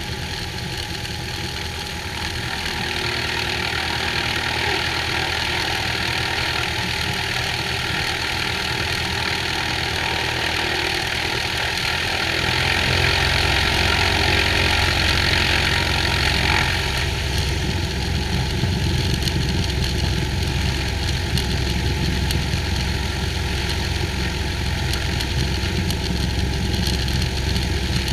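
Cessna 182H's six-cylinder Continental O-470 engine and propeller running steadily, picked up by a camera mounted outside the aircraft. About twelve seconds in the power comes up, and the engine runs louder and deeper from then on.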